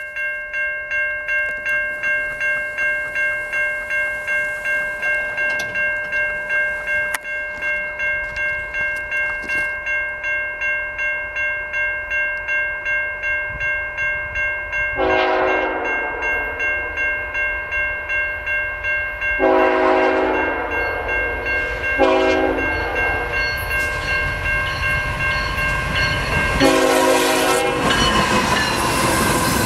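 A level-crossing warning bell rings steadily, about two strikes a second. Partway through, the GE ET44AC diesel locomotive CN 3010 sounds its horn in the grade-crossing pattern: long, long, short, long. The locomotive's engine and wheels then grow loud as it passes close by near the end.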